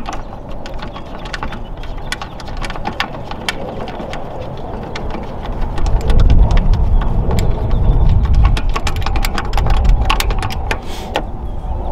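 Close rustling and rumbling handling noise with scattered sharp clicks as a bolt is threaded in by hand. The rumble gets louder about six seconds in, and the clicks come thickest in the later part.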